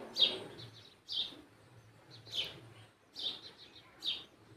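Steel ladle stirring thick dal in an aluminium pot, scraping and clinking against the pot about once a second.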